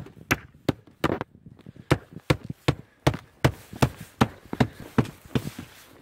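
Footsteps across an asphalt-shingle roof: a brisk, even run of knocks, about two and a half steps a second.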